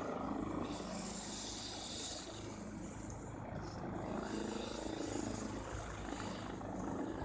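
Rescue helicopter's engine and rotor drone heard from a distance, steady, under wind noise.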